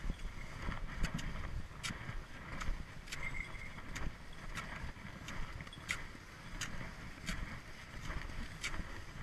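Cross-country skiing on crusty spring snow: ski poles planting in a steady rhythm, a sharp crunch about every three-quarters of a second, over a low rumble.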